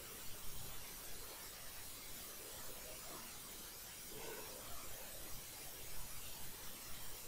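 Faint rubbing of a stylus drawing on a pen tablet, a few soft strokes over a steady hiss.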